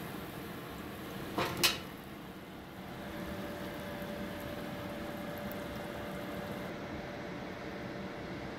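Egg-battered stuffed zucchini frying in hot oil in a pan: a steady sizzle, with two quick knocks about a second and a half in. Near the end the higher part of the hiss drops away.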